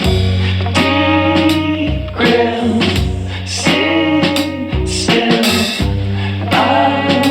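Background rock-blues music with electric guitar, bass and a drum kit keeping a steady beat.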